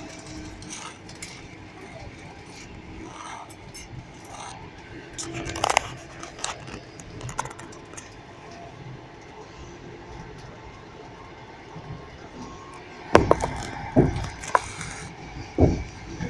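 Passenger train riding, heard inside the carriage: a steady rumble with scattered light rattles, then a run of sharp, loud clacks from about thirteen seconds in as the wheels strike the rail joints.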